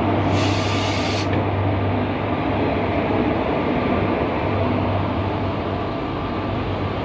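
Electric locomotive and passenger coaches rolling steadily past along the platform, a continuous rumble with a low hum. About half a second in, a burst of hiss lasts about a second and cuts off suddenly.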